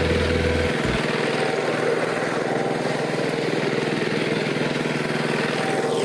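Power tiller's single-cylinder diesel engine running steadily under load as the machine is driven over a heap of harvested rice straw to thresh the paddy.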